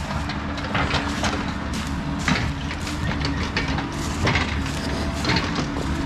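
Mini excavator's diesel engine running steadily while its bucket pushes through brush and leaf litter, with irregular cracks and crunches of wood snapping about once a second.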